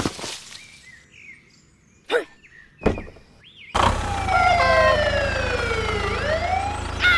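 A few light knocks, then about halfway through a toy police tractor's electronic sound effect switches on suddenly: a siren wailing down in pitch and back up over a steady engine rumble as the battery toy drives off.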